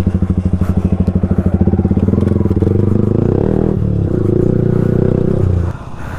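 Single-cylinder motorcycle engine running at low revs with a rapid, even pulse as the bike is ridden over a rough off-road trail. The engine note drops away near the end.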